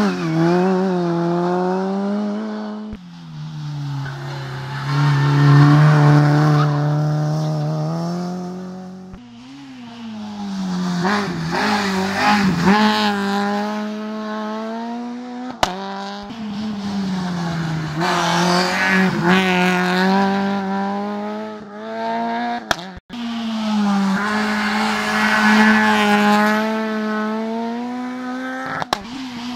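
Engines of racing hatchbacks revving hard through tight hairpins and cone chicanes, one car after another. The revs climb, then drop sharply every few seconds as the cars brake and change gear.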